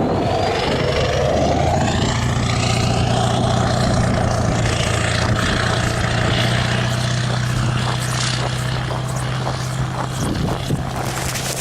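An engine speeding up over the first couple of seconds, then running at a steady speed, with scattered knocks and rustles near the end.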